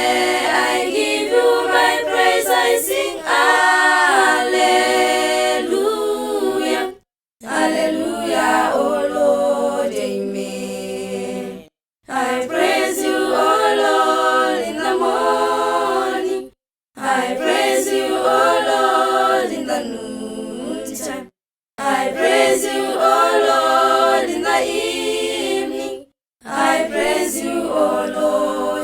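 An a cappella choir singing a hymn in harmony without instruments. The sound cuts out completely for a moment about every five seconds.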